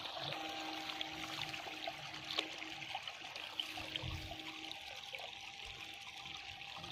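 Shallow water trickling and lapping with a few light splashes and clicks, over a faint steady hum.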